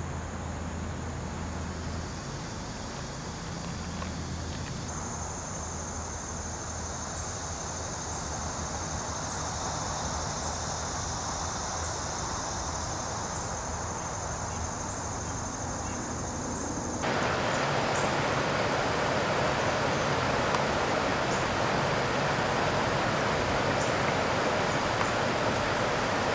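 Outdoor ambience: insects trilling in a steady high band, then an abrupt change about two-thirds of the way in to a louder, steady rushing noise like running water.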